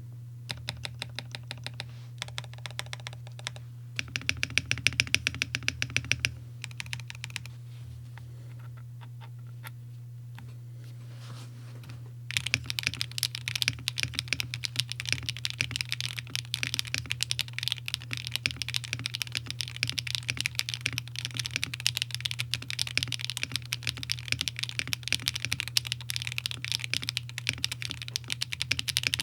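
Typing on a stock Bakeneko65 mechanical keyboard with HMX Xinhai switches on an aluminum plate and GMK Tuzi clone keycaps. Quick runs of keystrokes, a louder flurry about four to six seconds in, a lull of only a few presses until about twelve seconds in, then continuous fast typing.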